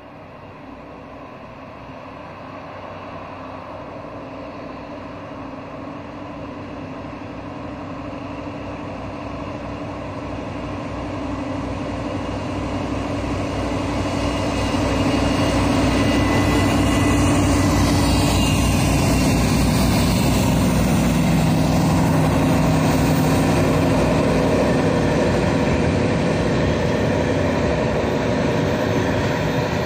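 A pair of Dv12 diesel-hydraulic locomotives droning under load as they haul a loaded timber train. The engines grow steadily louder as they approach, are loudest about halfway through as they pass, and then the log wagons roll by.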